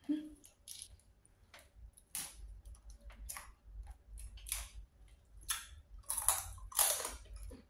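Boiled blue crab body being cracked and picked apart by hand: irregular small cracks, clicks and snaps of shell, then chewing near the end.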